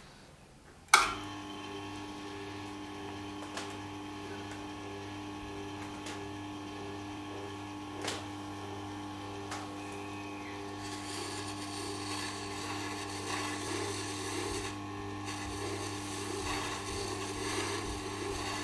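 A switch clicks about a second in and the Tormek sharpening machine's motor starts, running with a steady hum. A serrated knife blade is held against the spinning felt honing wheel to deburr the serrations, adding a rubbing sound that grows louder in the second half.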